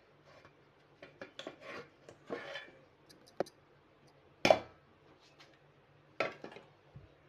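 Wire whisk and steel bowl clinking and scraping against the steel jar of a mixer grinder as thick semolina batter is scraped in, with scattered light clicks and two sharper knocks, the loudest about four and a half seconds in.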